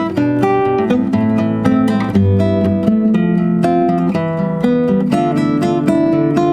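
Fingerstyle acoustic guitar, plucking a melody over bass notes in a steady flow of ringing notes.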